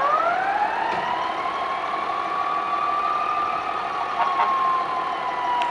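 Fire engine siren winding up in pitch over about a second, then holding a long wail that slowly sinks, over the truck's idling engine.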